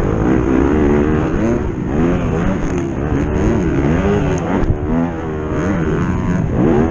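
Racing vehicle's engine revving hard, its pitch climbing and dropping again and again, with a rushing wind-like noise underneath. A single sharp knock comes about two-thirds of the way through.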